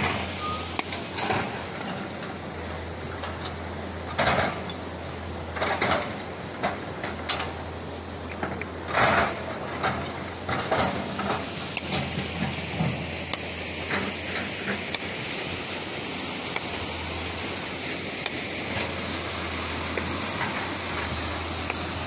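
Rocks knocking and clattering as stones are lifted and set down, a dozen or so irregular knocks in the first half, over a steady rushing hiss that grows louder and steadier in the second half.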